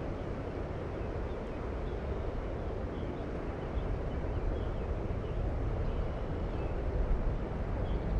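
Steady rushing noise of a creek running high and fast after heavy rain, heaviest in the low end.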